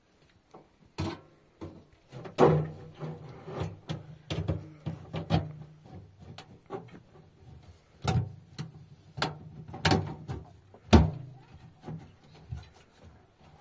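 Irregular knocking and clattering of hard objects being handled, with the loudest knocks about two and a half, eight, ten and eleven seconds in.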